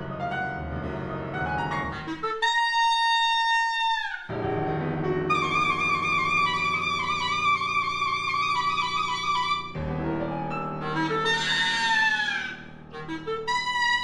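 Solo clarinet with grand piano accompaniment. About two seconds in, the clarinet holds a high note alone, bending it down at the end. The piano then comes back under long clarinet notes, and after a quick flurry of notes the clarinet holds another high note near the end.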